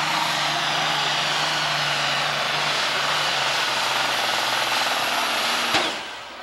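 Case IH Super Stock pulling tractor's engine running flat out under load as it drags the sled, loud and steady. Near the end a sharp click comes and the sound drops away quickly as the pull ends.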